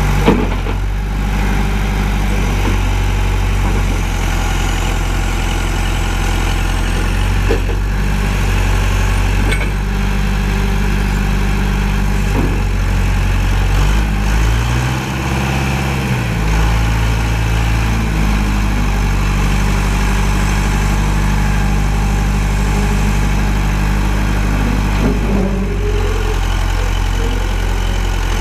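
John Deere 510D backhoe's four-cylinder diesel engine running steadily. About halfway, the engine speed drops briefly and then comes back up, and there are a few short knocks.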